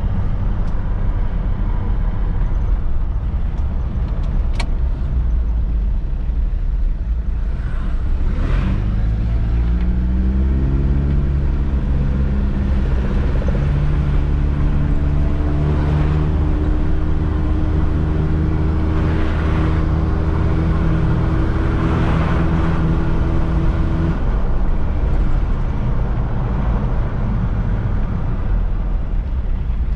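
1995 Mitsubishi Pajero short-wheelbase with the 2.8-litre turbo-diesel and automatic gearbox, heard inside the cabin while driving: steady engine and road rumble. About nine seconds in, the engine note climbs as it accelerates, holds steady, then drops away about 24 seconds in.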